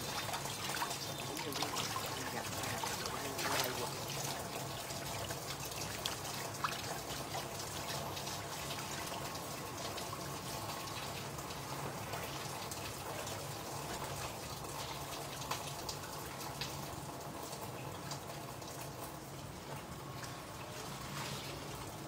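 Water trickling and dripping steadily, with scattered light clicks.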